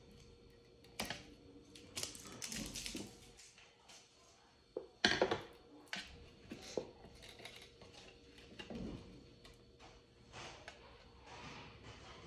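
Irregular clicks, taps and scrapes of hands working thin wires with scissors inside a hollow plastic star-shaped lamp shell. The loudest knock comes about five seconds in.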